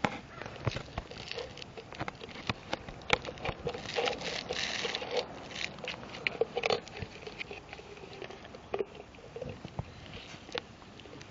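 A puppy making small, irregular clicking and smacking sounds, with a short rustle about four to five seconds in.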